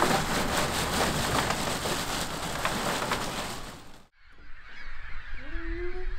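Crackling, rattling noise of a plastic bag of ice being handled into a boat's storage compartment, which cuts off about four seconds in. Then a flock of birds calling, with one brief, slightly rising honk near the end.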